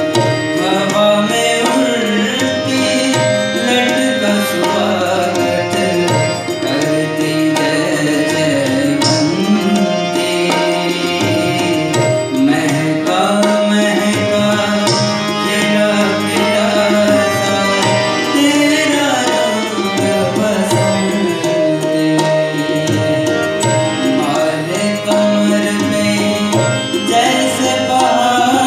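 Live ghazal music: tabla playing a steady rhythm with harmonium and keyboard over a held drone note, and a male voice singing in places.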